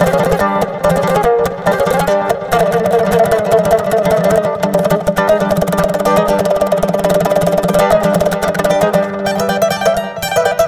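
Music on plucked string instruments, played in fast, rapidly repeated notes over a steady low note.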